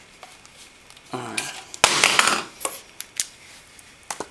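Handling noise from a TNW ASR 9mm pistol-calibre carbine and its parts: a sharp metallic click about two seconds in, a short burst of clatter right after it, then a few lighter clicks.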